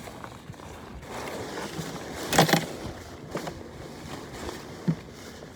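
Short knocks and a brief rattle about two and a half seconds in, over a steady background hiss, from gear being handled aboard a sailboat.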